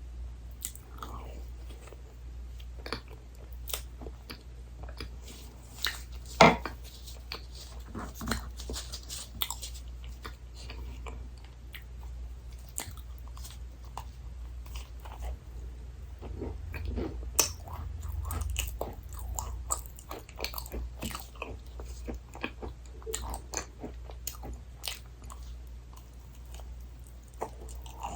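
Close-miked eating sounds of desserts being bitten and chewed: soft, wet mouth clicks and light crunches at an uneven pace, with one sharp click about six and a half seconds in.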